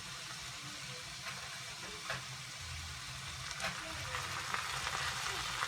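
Rice and vegetables frying in vegetable oil in a pot, a steady sizzle, with a couple of faint clicks about two and three and a half seconds in.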